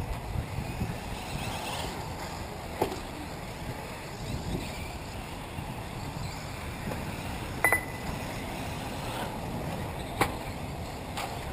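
Electric 1/8-scale RC off-road buggies racing on a dirt track: a faint motor whine rising and falling under a steady low rumble of wind on the microphone, with three sharp clacks spread through, the second with a short ringing tone.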